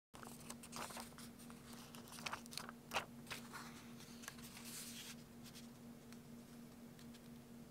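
Clear plastic sheet of sticky index tabs handled: light crinkling and small clicks, with a sharper snap about three seconds in, as a tab is peeled off and pressed onto the edge of a paper planner page. A faint steady low hum runs underneath.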